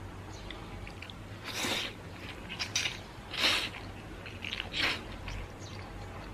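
Eating biangbiang noodles: three short, loud slurps about a second and a half apart, with faint chewing clicks between them.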